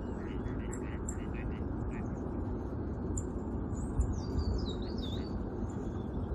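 A small songbird calling: a run of short chirps in the first two seconds, then a thin, high warbling song from about three to five seconds in. A steady low background rumble runs under it.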